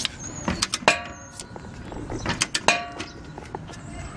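Torque wrench and hand tools working on the rear suspension bolts: a run of small ratchet ticks, with two sharp metallic clicks that ring briefly, about a second in and again near three seconds, as the bolts are tightened to 40 newton meters.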